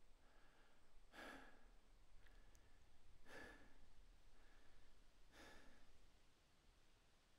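Faint, slow, heavy human breathing: a loud breath out about every two seconds, with softer breaths between, three loud ones in all before it dies away near the end.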